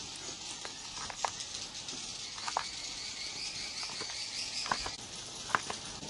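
Insects chirring at night in a steady high-pitched drone, with a few scattered sharp clicks.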